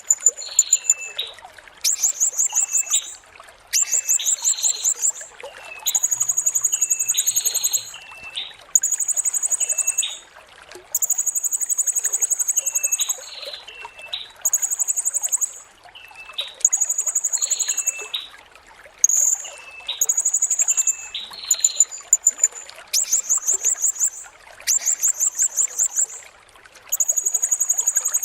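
Blue-crowned hanging parrot (serindit) calling: rapid, shrill, very high-pitched trills of about a second each, repeated every couple of seconds, with shorter, lower notes in between.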